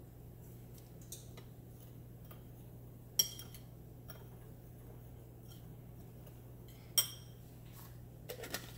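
Metal spoon stirring dry spice rub in a small glass bowl, with faint scraping ticks and two sharp clinks of the spoon against the glass, one about three seconds in and one near seven seconds.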